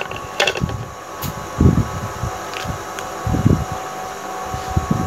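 Electric fan running steadily with a constant hum. A few light clicks and low dull thumps of handling sound over it.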